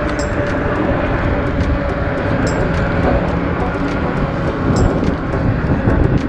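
Steady rushing wind and road noise from a moving bike, with a faint click about every two seconds.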